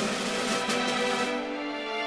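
Background music: a theme with sharp percussive beats that stop about halfway through, leaving held sustained notes.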